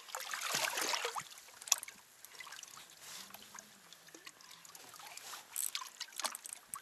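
Water trickling and lapping around a small inflatable boat, loudest in the first second, with a sharp click a little under two seconds in and a few lighter ticks after.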